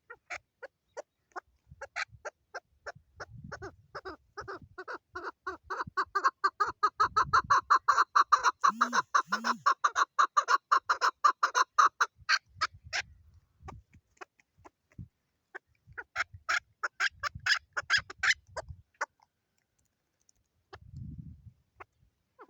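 Female chukar partridge calling: a long run of rapid, evenly repeated chuck notes that builds up, is loudest in the middle, and breaks off, followed by a second shorter run later.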